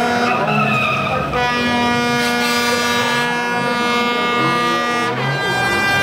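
Drift cars' engines held at high revs while the cars slide and spin their tyres, with the tyres squealing. The engine pitch steps to a new steady note about a second and a half in and again near the end.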